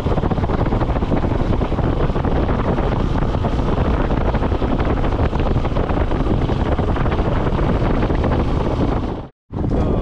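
Loud, steady wind rush buffeting the microphone of a moving motorcycle. It cuts out abruptly for a moment near the end.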